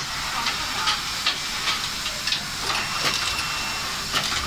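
Automatic radial-lead component insertion machine running: a steady hiss of compressed air under a series of sharp, uneven clicks from the insertion head cutting and pressing component leads into the board.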